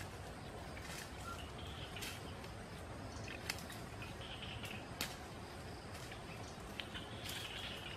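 Footsteps crunching through dry leaf litter and twigs, with scattered sharp snaps, two of them louder about three and a half and five seconds in, over faint bird and insect chirping.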